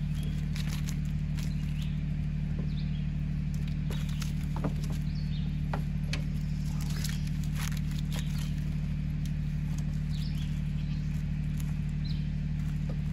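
Steady low drone of an idling diesel engine, the Mahindra 1626 compact tractor, running unchanged throughout. Scattered light clicks and rustles sit over it as the rope is handled.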